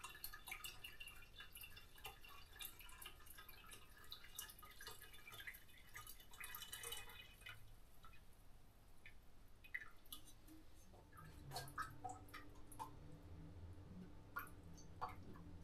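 Faint dripping of liquid with small scattered clicks, and a low steady hum coming in about two-thirds of the way through.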